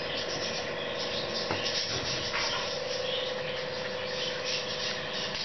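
Hot cooking oil sizzling steadily as kandarpam (rice-and-urad-dal paniyaram) deep-fry to golden brown, with a steady hum underneath.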